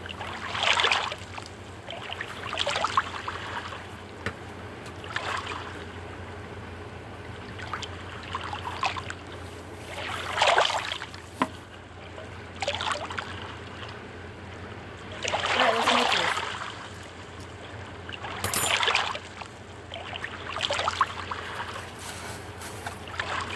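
Metal spatula scraping tostadas that are stuck to the bottom of a cheap frying pan, in short scrapes every one to three seconds.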